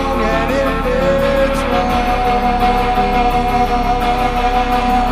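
Instrumental passage of a rock song with guitar: a wavering lead line settles into one long held note about two seconds in, over a steady beat.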